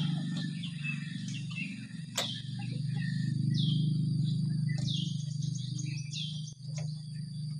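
Small bird chirping outdoors: about five short calls, each falling in pitch, over a steady low hum. There is a sharp click about two seconds in.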